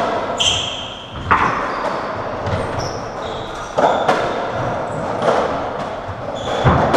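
Racketball rally: the ball struck by racquets and smacking off the court walls every second or so, each hit echoing around the enclosed squash court, with short high squeaks of court shoes on the wooden floor between shots.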